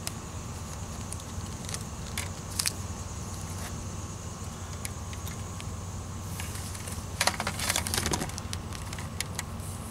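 Insulated wire being pulled off a spool and handled: scattered light clicks and rustles, with a louder rustling cluster about seven seconds in, over a steady low hum.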